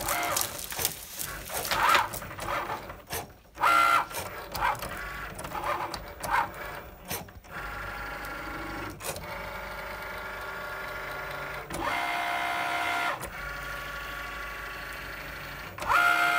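Cricut Maker cutting vinyl with its regular blade at double speed: its carriage and mat motors whine in short pitched spurts with pauses. From about seven and a half seconds in the whine turns longer and steadier, stepping in pitch a few times.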